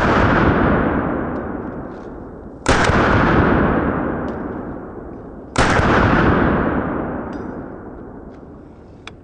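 Three shots from a semi-automatic AR-10 rifle in .308 (7.62x51), about three seconds apart, each loud crack trailing off slowly over the following seconds.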